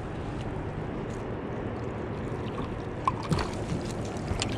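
Water lapping and gurgling around a kayak hull. About three seconds in come a few small splashes and knocks as a landing net is scooped up and lifted from the water with a trout in it.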